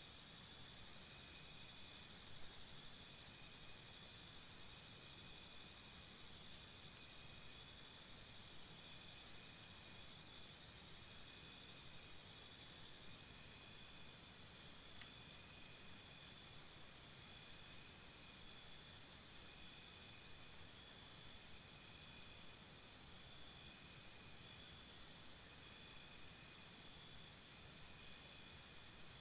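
Crickets chirping: a high pulsed trill of about four chirps a second comes in bouts of three to four seconds, about every seven seconds, over a steady high insect chorus.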